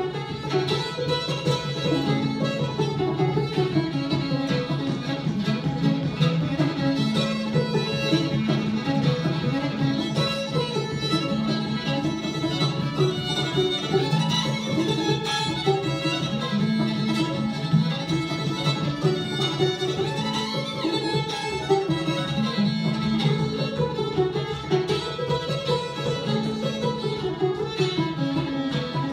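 Old-time fiddle and banjo duo playing a tune together, the bowed fiddle melody over the picked banjo.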